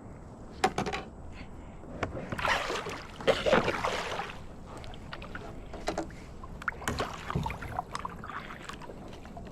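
Water splashing and knocks around a kayak: a sharp knock under a second in, two longer splashing stretches a couple of seconds in, then scattered light knocks and clicks.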